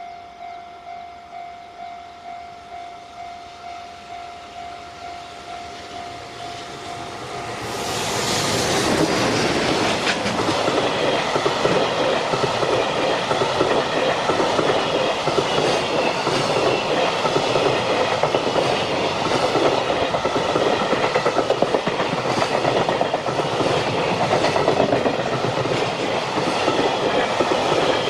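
Level-crossing warning bell dinging about twice a second. About eight seconds in, a JR Freight freight train arrives and passes over the crossing with a loud, steady rumble and rhythmic clickety-clack of wheels over rail joints.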